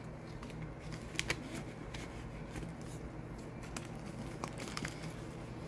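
Faint handling of paper dollar bills and a clear plastic cash envelope: soft crinkles and a few light, separate clicks over a low steady room hum.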